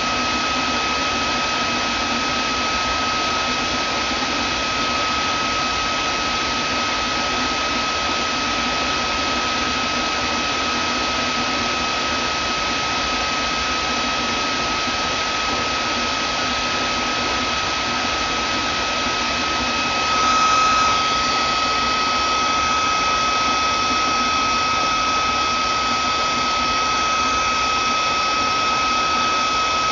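Vacuum cleaner motor running steadily: a rushing hiss with a high whine held on one pitch. About two-thirds of the way through it surges briefly, then runs on slightly louder and brighter.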